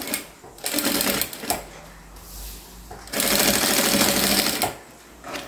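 Industrial straight-stitch sewing machine running in two short bursts, about a second and then a second and a half long, with a fast ticking of stitches, as a seam is sewn through layered fabric, backing and plastic.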